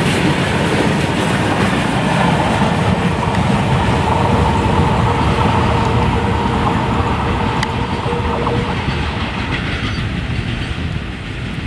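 Covered freight wagons of an Indian Railways goods train rolling past on ballasted track, the wheels clattering steadily over the rails, with a steady high tone for several seconds in the middle. The sound eases off near the end as the brake van at the tail draws away.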